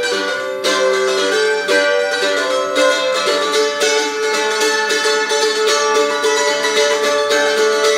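F-style mandolin picked with a plectrum: a steady stream of quick plucked notes and double-stops, the strings ringing between strokes.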